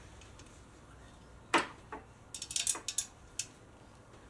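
Small Allen key clicking against a bolt head on a motorcycle oil cooler guard as the bolt is tightened bit by bit. A sharp click comes about one and a half seconds in, then a quick run of lighter clicks shortly after.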